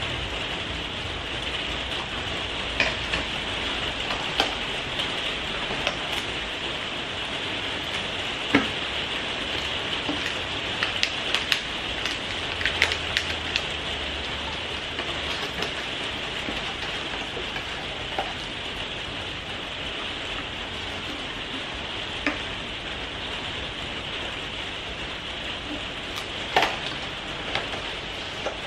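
Small cardboard gift boxes and a sweet wrapper being handled and folded: scattered light clicks and crinkles over a steady hiss.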